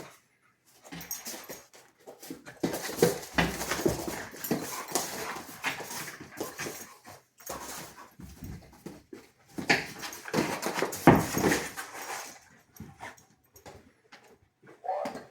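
Husky whining and vocalizing in uneven bursts, with louder outbursts about three seconds in and again around ten to eleven seconds in.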